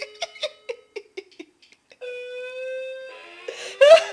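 Wireless doorbell chime on a dying battery, sputtering and distorted: choppy clicks over a held tone, then a long drawn-out note about halfway through. A louder, wavering sound joins in near the end.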